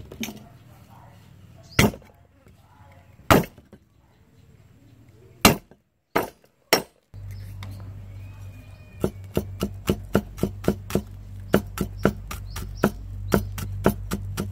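Cleaver striking garlic on a round wooden chopping board. First come a few single knocks a second or two apart, then from about two-thirds of the way in a rapid, even chopping of about four strokes a second as the garlic is minced.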